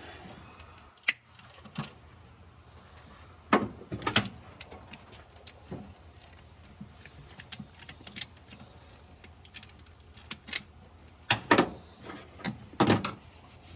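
Hand crimping tool and metal ring terminal being worked onto a red wire: irregular sharp metallic clicks and snaps, several of them bunched together near the end.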